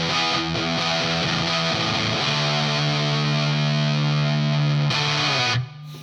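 Electric guitar played through a Sola Sound Mk IV Tone Bender 'Esprit Blanc' fuzz pedal, giving a wonderfully saturated, thick fuzz. Picked notes give way about two seconds in to a held chord that sustains, then is cut off shortly before the end.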